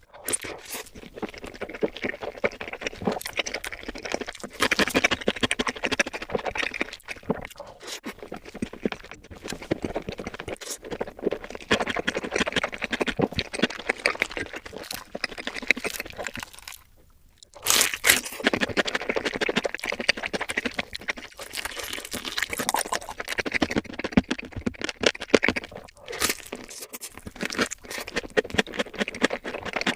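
Chewing and crunching of crispy fried food in a rapid, uneven run of crunches, with a brief pause about 17 seconds in.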